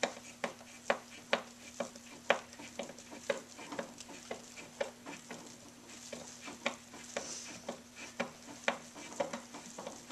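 Hand-held Phillips screwdriver driving screws into the metal seat bracket of an office chair: a run of short sharp clicks, about two a second at first, then less regular.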